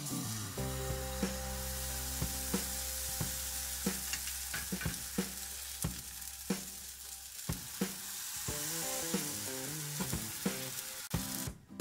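Crepe batter sizzling in a hot buttered nonstick pan, a steady frying hiss, under background music with a steady beat.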